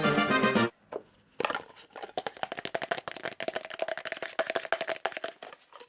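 Music ends a moment in. Then a small bottle of shiny metallic hobby paint is shaken hard for about four seconds, giving a rapid, steady run of clicking rattles.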